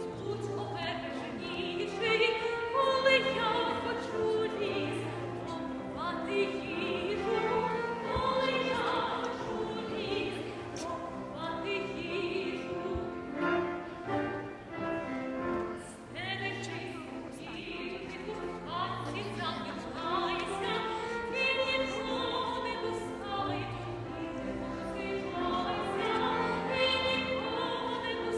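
Operatic singing with instrumental accompaniment, the voices moving through sung phrases over a steady musical backing.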